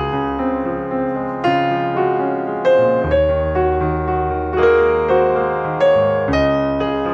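Background piano music: a gentle melody of notes struck about once a second, each fading away, over soft low chords.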